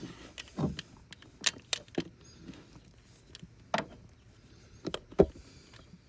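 Metal hand tools clinking and knocking while bolts on the engine are checked: about seven separate sharp clicks and knocks, the loudest about five seconds in.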